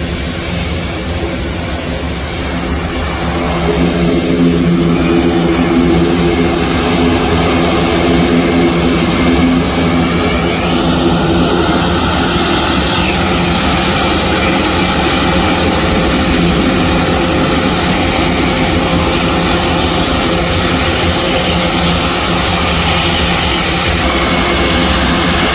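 Airbus A400M's four turboprop engines and eight-bladed propellers running as the aircraft taxis past: a steady drone with a humming propeller tone, growing louder about three seconds in and then holding.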